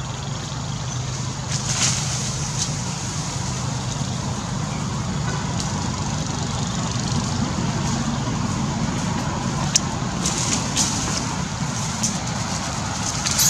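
Steady low outdoor rumble, with a few short crackles of dry leaf litter about two seconds in and again around ten seconds in.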